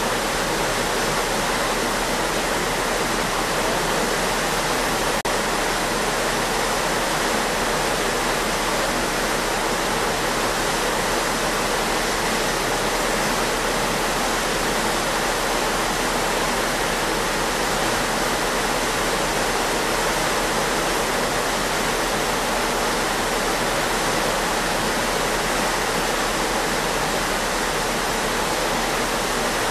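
Churned water rushing steadily in a ship's wake, an even, unbroken hiss.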